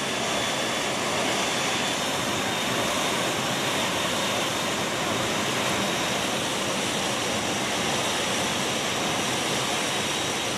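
Steady rush of airflow and the C-17's jet engines through the open paratroop door of the aircraft in flight, with a faint high whine held throughout.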